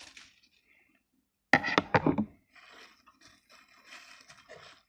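Scissors cutting the toy's plastic material: a few sharp, loud snips close together about a second and a half in, followed by softer rustling and scraping as the material is handled.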